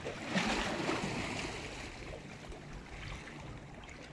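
Small sea waves washing against the shore rocks: a swell of hiss that rises about half a second in and fades over the next couple of seconds.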